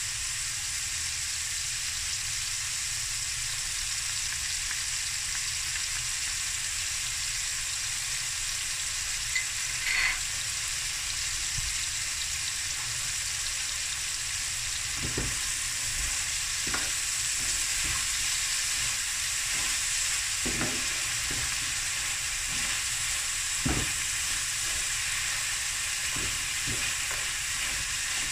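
Boerewors sausage, red onion and jalapeños sizzling steadily in a hot pan with hot sauce and chutney just added. From about halfway a wooden spoon stirs the pan, with irregular knocks and scrapes against it.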